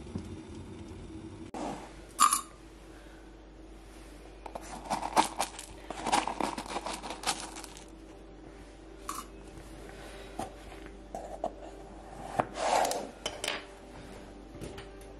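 Clinks, taps and scrapes of glass and metal tea things being handled: loose-leaf tea going into a glass teapot's metal mesh infuser from a tea tin and the lid being set on. A sharp clink about two seconds in, a busy run of rattling and clinking in the middle, and a last cluster of clinks near the end.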